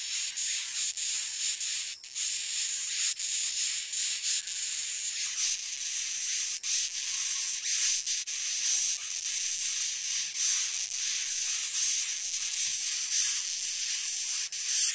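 Rhinoceros beetle stridulating while stranded on its back: a long, continuous rasping hiss that swells and fades in quick strokes, likened to a long mouth-kissing sound.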